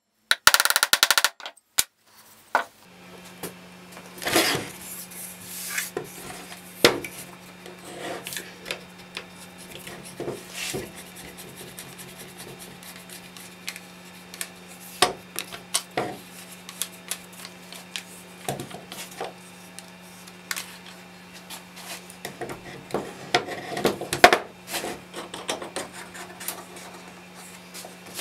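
Plywood parts of a stitching pony knocking, clicking and rubbing together as the jaws and threaded clamp are fitted and worked by hand, over a steady low hum. It opens with a loud rapid rattling that cuts off about a second in.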